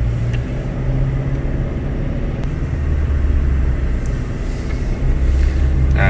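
A car driving on a rough, muddy, potholed road: a steady low rumble of engine and road noise.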